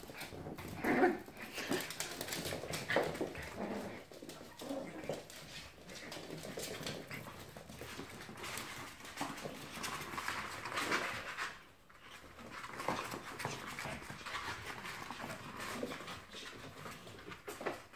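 Two-month-old bichon frise puppies whimpering in short, scattered bursts while they play, with light clicks and scuffles from small paws on a tiled floor.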